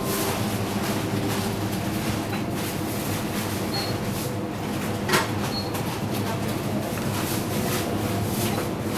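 Steady supermarket background din with a low hum, with a few light clicks and one sharper knock about five seconds in.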